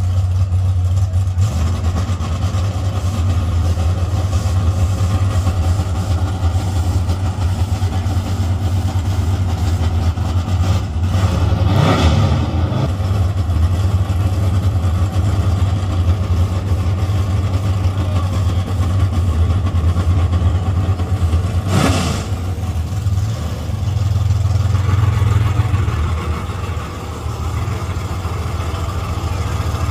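Drag race car engine rumbling steadily, with two brief louder bursts: one about twelve seconds in and another about ten seconds later.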